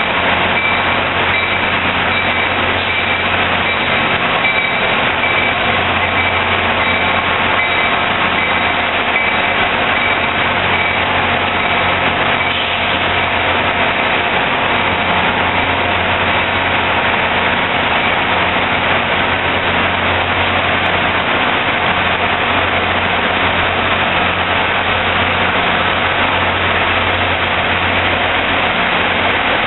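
Diesel commuter-rail locomotive engine running steadily at the station: a constant low engine drone with a few steady higher tones, unchanged throughout.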